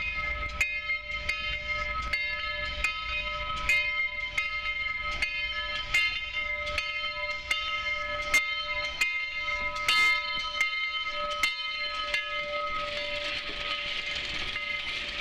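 Southern Railway 4501's steam locomotive bell ringing steadily, about three strikes every two seconds, as the 1911 Baldwin Mikado pulls into the station. The ringing stops about twelve seconds in, and a steady hiss of escaping steam follows.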